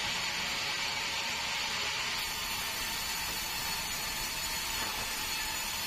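Sawmill band saw running and cutting lengthwise through a wooden plank as it is fed past the blade: a steady, even hiss without breaks.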